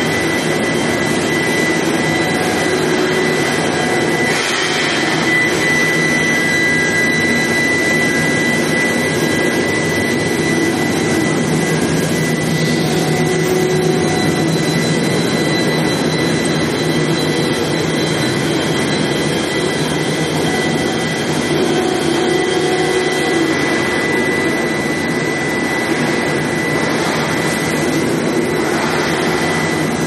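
Oil drill pipe induction heat treatment line running: a steady high-pitched whine over a constant, even machinery noise.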